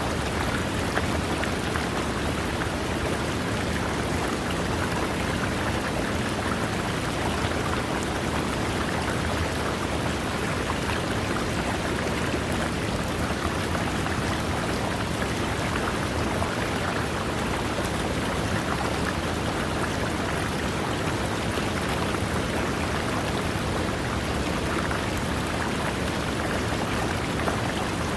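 River water running over rocks: a steady, unbroken rush of water.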